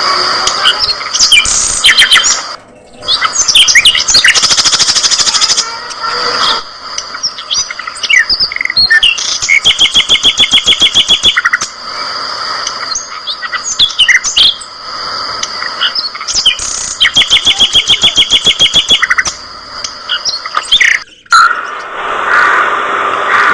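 A flock of budgerigars chattering, with overlapping high chirps and warbles and, twice, a fast even trill.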